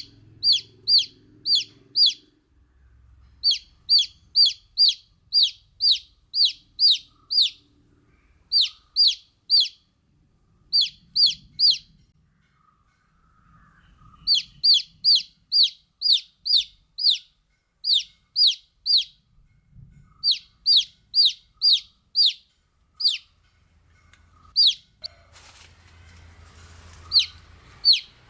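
Baby chicks peeping: sharp, high, falling peeps in quick runs of about three a second, broken by short pauses. A faint rustling noise rises under the peeps near the end.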